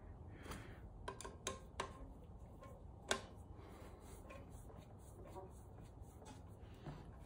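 Sparse light clicks and taps of hand tools on the clutch bolts of a motorcycle engine as they are tightened, the loudest click about three seconds in.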